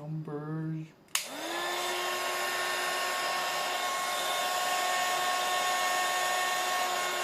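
A handheld hot-air blower switched on with a click about a second in. Its motor spins up to a steady whine over a rush of air, used to heat the screen and soften the adhesive holding it in place.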